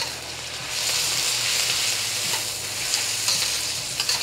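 Aromatics, chilies and broad bean paste sizzling in hot oil in a carbon steel wok while a spatula stirs them. It opens with a sharp clack of the spatula on the wok, and the sizzle grows louder about a second in as the ingredients are turned through the oil.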